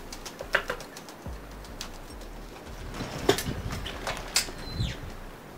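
Potting mix with perlite and grit poured and shaken from a plastic cup into a cement pot, giving scattered clicks and rattles of small stones, with a few sharper knocks of the cup and pot. A bird calls in the background, with a short falling whistle about four seconds in.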